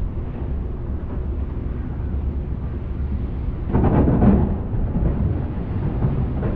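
Passenger ferry's engine giving a steady low rumble, with a louder surge of noise about four seconds in.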